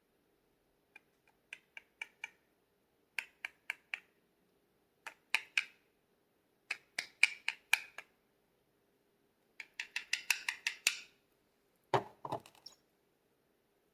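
Quick light clicks of fingertips and nails tapping on a pressed-powder highlighter palette, in short rapid bursts of three to seven taps. They end with a couple of duller knocks about twelve seconds in.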